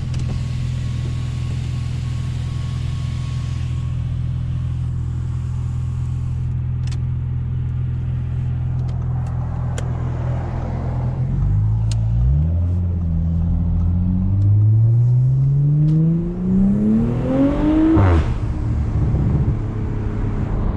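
Audi S5 B9's turbocharged 3.0-litre V6 breathing through an AWE Track Edition exhaust and Luft-Technik intake. It runs steadily at first, then accelerates hard: the revs climb for about six seconds, peak, and drop sharply at a gear change. Loud.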